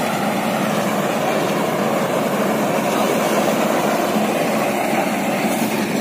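Rice combine harvester running steadily at work, its engine and cutting and threshing machinery making a constant mechanical drone.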